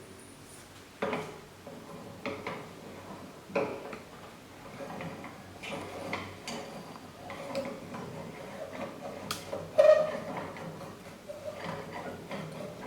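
Irregular clicks, taps and knocks of hard plastic and metal parts being handled and fitted together while a handle holder is mounted on a machine, the loudest knock about ten seconds in.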